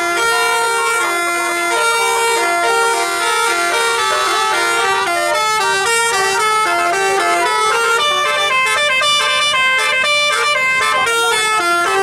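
Tour bus's multi-tone 'telolet' horn, its roof-mounted trumpets playing a quick tune of stepping notes without a break.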